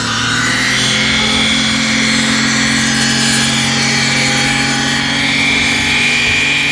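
Car engine held at steady high revs during a burnout, with the spinning tyres screeching on the asphalt.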